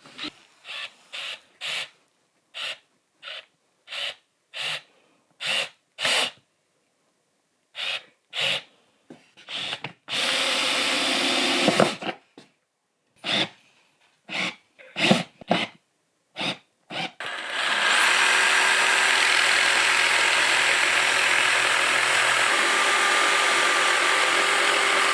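A power tool running in a string of short bursts, then run steadily for about seven seconds near the end.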